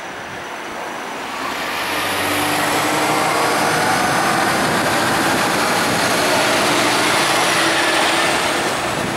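Scania P280 fire engine driving past close by, its diesel engine and tyres growing louder as it approaches, staying loud as it passes, then fading as it pulls away.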